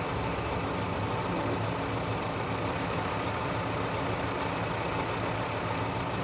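Fire truck engine idling steadily, an even low hum that does not change in pitch or loudness.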